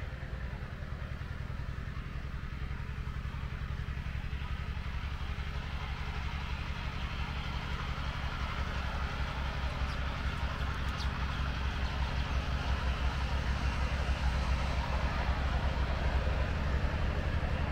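An engine running steadily with a low hum, slowly growing louder, with a rising hiss above it.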